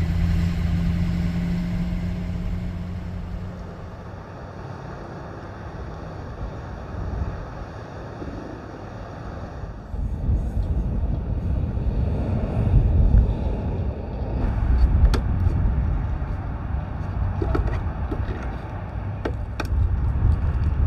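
Pickup truck's engine hum and road noise heard inside the cab, fading after about three seconds. About ten seconds in, the sound cuts to outdoors: a rough low rumble of wind on the microphone, with a few sharp clicks.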